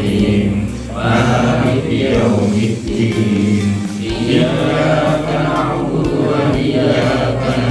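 A group of men chanting prayers together in unison, in short repeated phrases about once a second.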